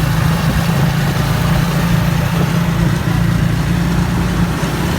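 An engine running steadily at constant speed, a loud, low, even drone.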